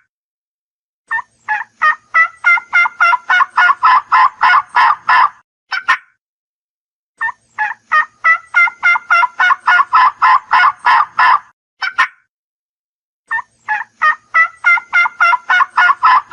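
Turkey gobbling: three bouts of rapid repeated notes, about four a second, each bout lasting about four seconds with short pauses between.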